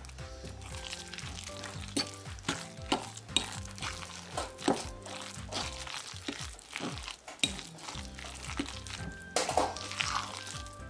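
A metal fork stirring a wet mix of grated squash, corned beef and egg in a glass bowl, with irregular clinks and scrapes against the glass. Background music plays throughout.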